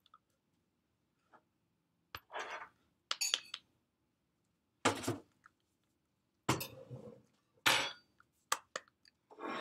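Hands striking and brushing against each other and against clothing during sign language: a run of short slaps and rustles, about six of them, with a few sharp clicks in between.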